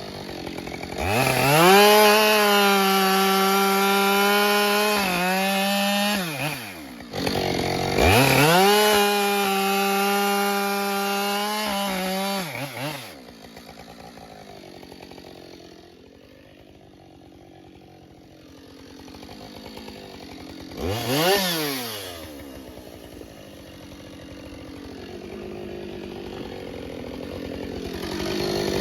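Husqvarna 572 XP two-stroke chainsaw revving up and held at full throttle for about five seconds, twice, cutting through ash logs. Between the cuts and afterwards it drops back to idle, with a short throttle blip a little after the middle and another at the very end.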